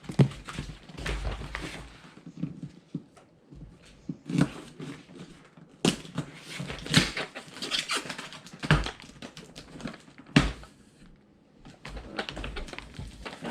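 A cardboard box being carried and handled: a scatter of irregular knocks and clicks with rustling and scraping between them.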